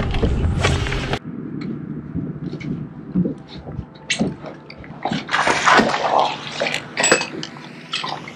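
Water sloshing and splashing around a bass boat, with scattered light knocks and clicks. A louder rush of noise cuts off suddenly about a second in.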